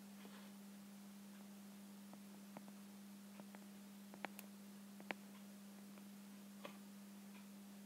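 Near silence with a steady hum, broken by a few faint taps of a stylus on an iPad screen, two of them a little clearer past the middle.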